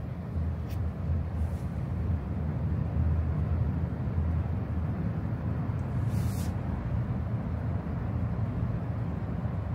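Canister gas stove burning under a pot: a steady, low roar of the flame, with a brief hiss about six seconds in.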